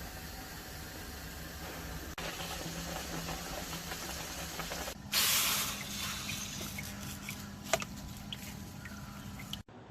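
A steady spraying hiss with a louder half-second burst of spray about five seconds in, then a sharp click a few seconds later. The sound cuts off abruptly several times.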